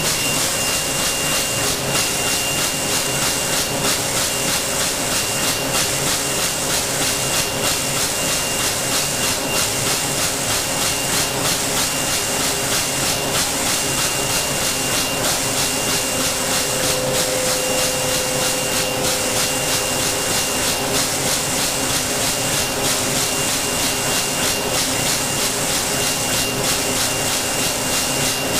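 Plastic bag-making line with a CT-9914 rotary wicketer running at speed: a steady hissing machine noise with a fast, even pulse as the arms cycle, over a thin steady high whine.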